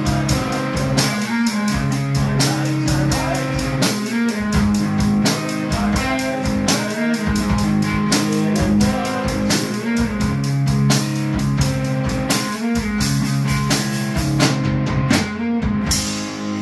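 Electric guitar through a small amp and a drum kit playing a song together: busy drumming and cymbals under held guitar notes. Near the end the drums stop and the guitar rings on alone.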